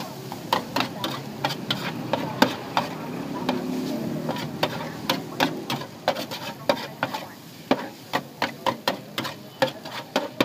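Metal spatula clacking and scraping against a large iron wok as noodles, beef, egg and vegetables are stir-fried, in quick irregular strikes over a steady sizzle.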